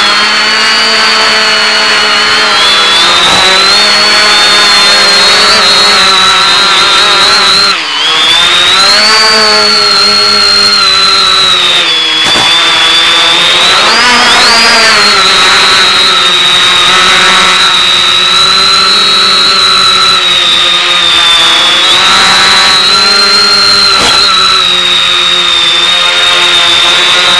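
X550AIOP quadcopter's electric motors and propellers whining, the pitch rising and falling as the throttle changes, heard over the analog FPV downlink with a hiss of radio static. The sound briefly cuts out once about eight seconds in.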